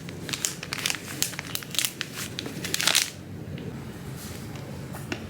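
Quick, irregular crinkling and rustling of material being handled, stopping about three seconds in.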